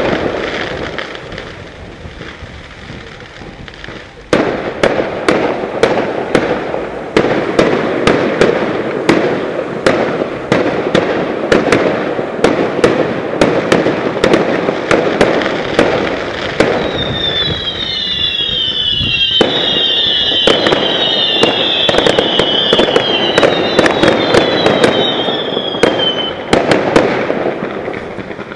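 Fireworks display: a rapid stream of sharp bangs and crackling. It eases briefly at first, then jumps back hard about four seconds in. In the latter part a run of falling whistles repeats many times over the bangs.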